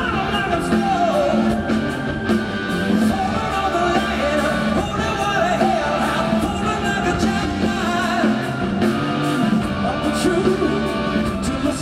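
Hard rock band playing live: a male singer's wavering vocal line over drums, electric bass and keyboards.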